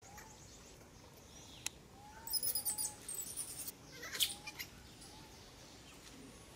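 Newborn macaque giving short, faint squeaky calls several times, with louder bursts of high-pitched chittering about two to four seconds in.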